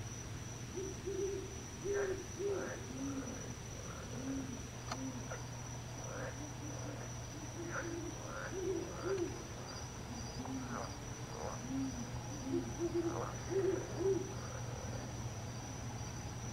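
An owl hooting: short low notes in groups of two or three, repeated again and again, loudest near the end. Beneath them runs a steady high insect trill, with a low steady hum.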